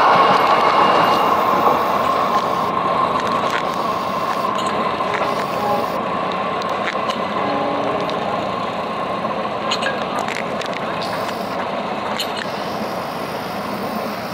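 A passenger train's coaches rolling away along the rails, the rumble and rail noise slowly fading as the train recedes. A steady high ringing tone from the wheels on the rails dies away in the first few seconds.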